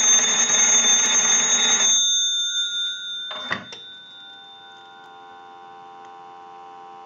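The Western Electric 317 wall telephone's twin gong bells ring loudly for about two seconds under an analyzer's ring cycle, then stop. About three and a half seconds in there is a clunk as the receiver is lifted off the hook. A steady, quieter dial tone follows, heard from the receiver through an amplified pickup.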